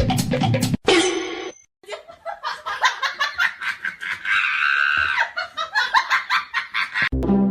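People laughing in rapid repeated bursts. A drum beat cuts off just under a second in, and plucked string music starts near the end.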